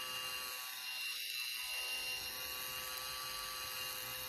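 Handheld electric facial cleansing brush running with a steady motor whir, its head pressed against the lips.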